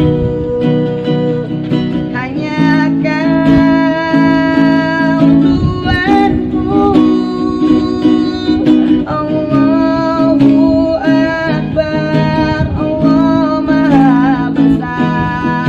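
A man singing an Indonesian Islamic devotional song to his own acoustic guitar, strumming steady chords under sung phrases with wavering held notes and short breaks between lines.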